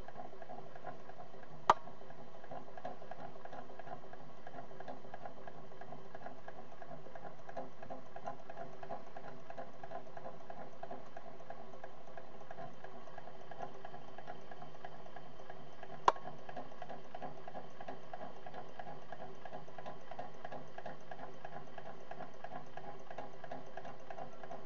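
Steady fine crackling and bubbling hiss from a homemade Stirling engine rig running over its flame, with the water at the engine heating toward the boil. Two sharp clicks, about 2 seconds in and about 16 seconds in.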